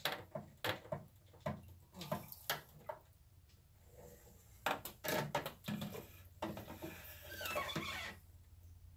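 Irregular clicks, knocks and light clatter of plastic pump fittings and braided hose being handled and fitted, over a faint steady low hum.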